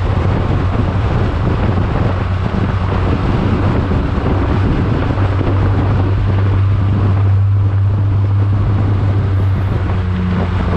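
Race car engine holding a steady note, with heavy wind noise on the microphone.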